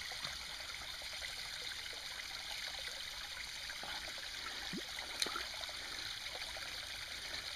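Shallow forest stream running and trickling steadily, with one sharp click about five seconds in.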